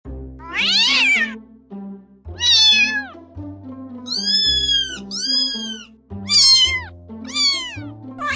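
Domestic cat meowing repeatedly: about six separate meows, each under a second, arching up and down in pitch, the two in the middle higher than the rest. Background music with slow low notes plays underneath.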